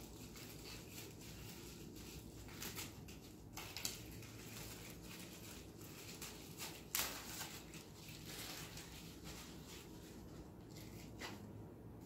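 Faint rustling of packaging being handled, with scattered sharp clicks, the loudest about seven seconds in, over a low steady hum.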